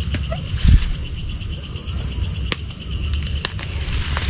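Night insect chorus: a steady high buzz with short chirps repeating a little under once a second. Under it, a low rumble of camera handling, with a thump under a second in and a few faint clicks later.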